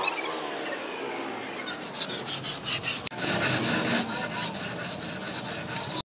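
Steel knife blade, made from an old file, rubbed back and forth by hand on wet sandpaper: quick, even scratching strokes, several a second. The sound cuts off abruptly just before the end.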